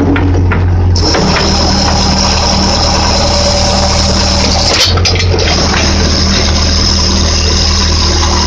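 Case 580D backhoe's engine running under load with a steady rushing hiss of hydraulics as the arm is worked, briefly easing off about five seconds in.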